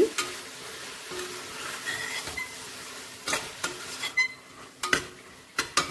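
Metal spatula stirring spinach and chana dal in a pressure cooker, with a few sharp scrapes and knocks against the pot in the second half.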